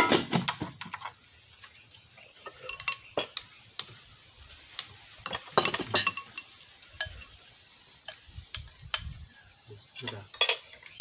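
Spoons clinking and scraping against plates and bowls while people eat, in scattered irregular clicks, with a cluster of louder clinks just after the start, another about six seconds in and one more near the end.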